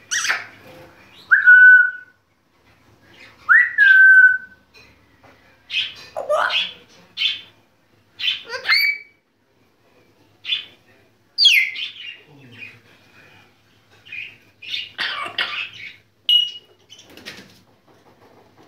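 African grey parrot whistling and calling. Two clear whistles in the first few seconds each rise and then hold a steady note, followed by a string of short squawks and chirps with quiet gaps between them.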